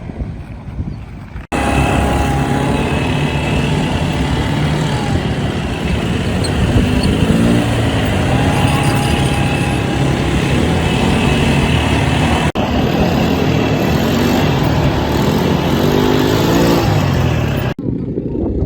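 Quad bike (ATV) engine running under way with wind and road noise, revving up in two rising sweeps. The sound changes abruptly a few times.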